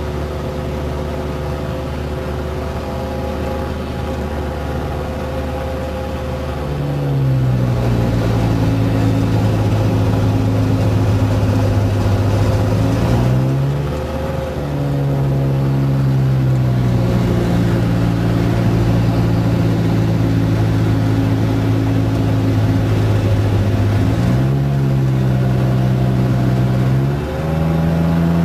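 Caprice 21 ultralight's engine and propeller droning steadily, heard from inside the cabin. The engine note drops and gets louder about seven seconds in, rises and falls briefly around the middle, and shifts again near the end as the power changes.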